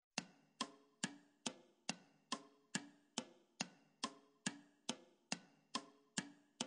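Evenly spaced sharp ticks, a little over two a second, like a clock or metronome, each with a brief pitched ring. They open a rock song recording just before the band comes in.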